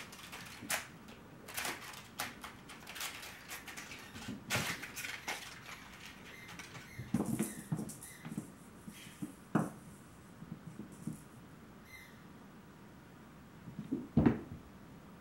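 Bengal kittens at play: crinkle toys crackling and paws scampering across a hardwood floor, with dull thumps as they pounce. The loudest thump comes near the end, as a kitten lands from a leap.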